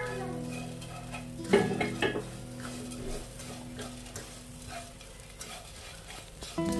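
A plastic spatula scraping and tossing crispy fried anchovies through balado chili paste in a non-stick wok, with a light sizzle from the heated pan. A louder flurry of scrapes comes about one and a half seconds in.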